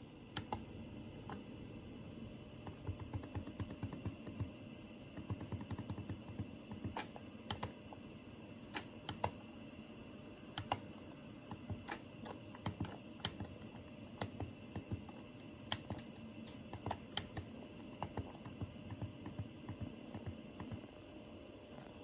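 Buttons on a Daikin wired air-conditioner remote control clicking as they are pressed, in quick irregular runs of several presses with short pauses between.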